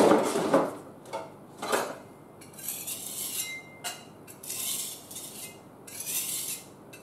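Sanding block being cleaned off: a few short knocks, then several bursts of scratchy, high-pitched noise, each about a second long.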